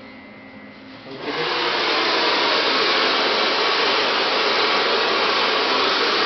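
Handheld hair dryer switched on about a second in, then blowing steadily at full power.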